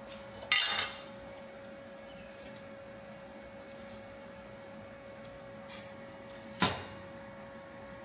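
Steel tools and flat bar clanking on a steel fabrication table: two sharp metal clanks, one about half a second in and one near the end, over a steady faint hum.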